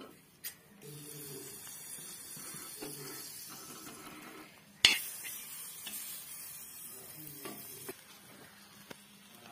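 Buttered bread toasting on a flat pan, sizzling softly, while a metal spoon taps and scrapes against the pan and bread. One sharp clink of the spoon on the pan, about five seconds in, is the loudest sound.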